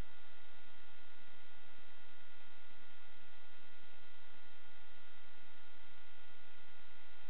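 Steady electronic hum and hiss with a few fixed high whining tones that never change: the noise of an analog FPV video receiver's recorded audio channel.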